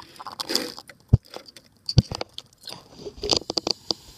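Vinegar being added to a jar of water and baking soda: a short rush about half a second in, then crackly clicks. Two dull knocks come at about one and two seconds in, as the jar and bottle are handled.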